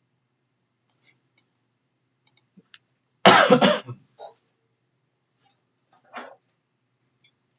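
A person coughs once, loudly, about three seconds in. A smaller cough or throat-clear comes a few seconds later, and faint short clicks are scattered around them.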